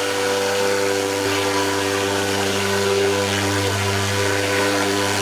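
Engine-driven insecticide fogging machine running steadily at constant speed, a loud even drone that holds one pitch.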